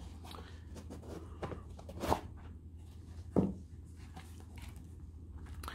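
Handling noises as a moulded inner tray is lifted out of a zippered hard case and set down: light rustles and clicks, with two sharper knocks about two and three and a half seconds in, over a faint steady low hum.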